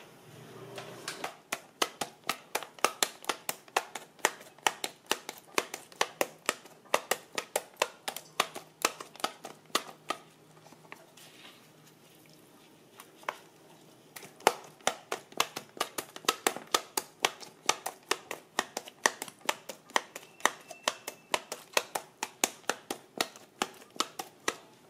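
Handheld plunger-type needle meat tenderizer pressed again and again into a thin raw beef steak on a plastic cutting board, clicking about four times a second. The clicking stops for a few seconds near the middle, then starts again.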